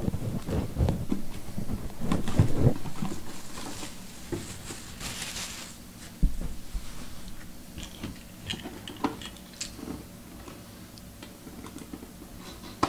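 Cardboard mini-helmet box being handled and opened: scattered taps, scrapes and rustling from fingers and a blade on the card. There is a short scratchy rasp about five seconds in and a low thump just after six seconds.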